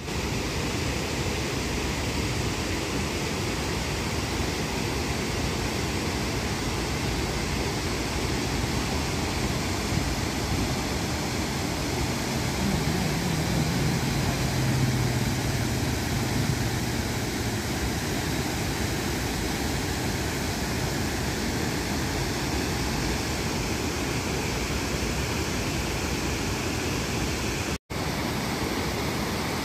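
Water pouring over a long concrete weir into a shallow pool: a steady, even rushing of the overflow. A faint low hum rises and fades about halfway through.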